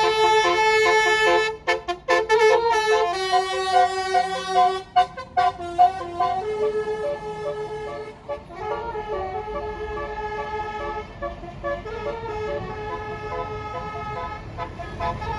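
A bus's basuri musical air horn playing a tune: a string of held and short notes changing pitch. It is loud for the first six seconds, then carries on more quietly over a low rumble.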